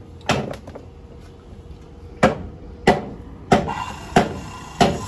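Hammer blows on metal, six strikes that each ring briefly. The first comes alone, then a pause, then five in a row about two-thirds of a second apart. A steady hum with a hiss joins in about three and a half seconds in.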